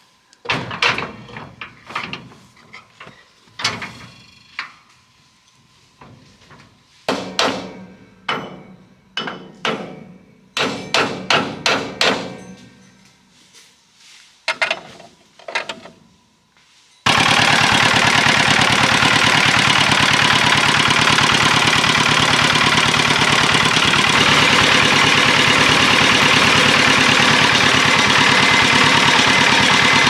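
Uneven hammer blows in short clusters, each ringing briefly. A little past halfway a diesel farm-machine engine cuts in abruptly and runs loud and steady with a fast, even firing beat.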